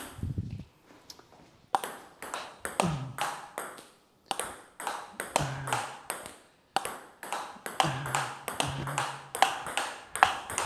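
Table tennis rally: a plastic ball clicking in quick succession off rackets and bouncing on the table, several hits a second with a few short breaks.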